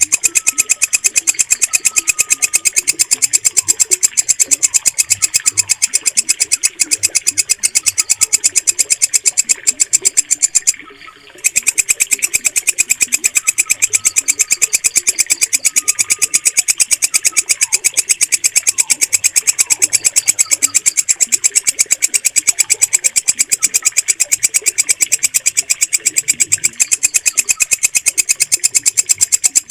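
Walang kecek katydid (bush cricket) stridulating: a loud, high-pitched, rapid run of regular ticking pulses that stops briefly about eleven seconds in, then resumes.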